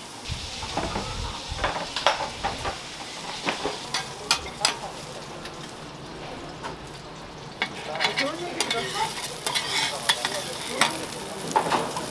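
Food frying and sizzling on a hot griddle, with repeated sharp scrapes and clicks of a metal utensil working it. The clicks thin out for a moment in the middle.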